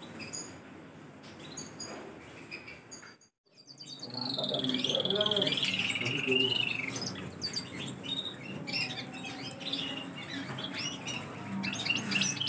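Caged domestic canaries. Faint chirps at first, then a brief break about three seconds in. After that a silver agate canary sings loudly: a long warbling phrase that falls in pitch, followed by scattered chirps and short phrases.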